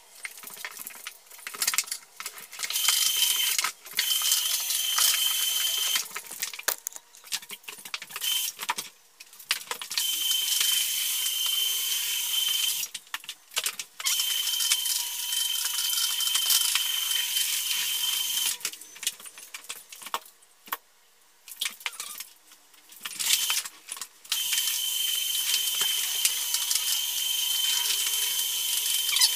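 Rotary floor buffer running across a sanded Douglas fir floor: a steady motor whine over the hiss of its pad scrubbing the wood. It comes in stretches of a few seconds that start and stop abruptly, with short quiet gaps between.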